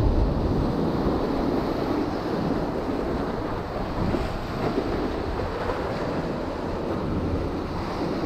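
Ocean surf breaking and washing in over shoreline rocks, with wind rumbling on the microphone.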